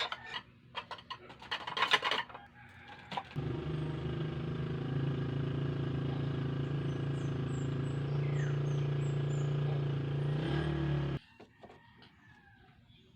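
A few clattering knocks, then a motor starts and runs with a steady hum for about eight seconds before cutting off suddenly.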